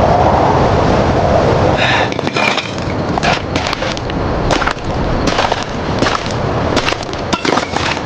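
Construction-site work noise: a steady din for about two seconds, then a run of irregular sharp knocks and cracks.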